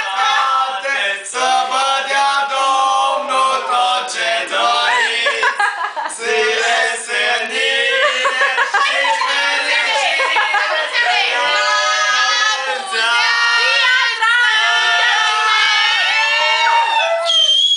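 A few young people singing loudly together close to the microphone, several voices at once without a backing track.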